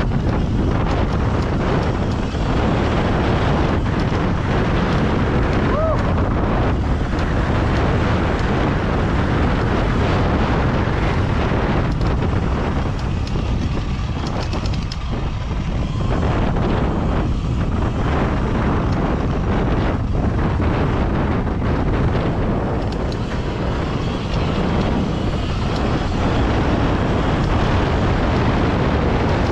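Loud, steady wind noise on the microphone while riding an electric dirt bike over a rough gravel trail, with tyres crunching over stones and scattered small knocks from the bumps.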